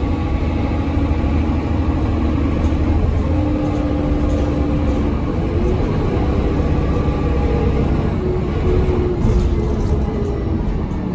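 Dennis Trident double-decker bus's diesel engine and Voith four-speed automatic gearbox running under way, heard from inside the upper deck: a steady low drone with whining tones that shift in pitch several times.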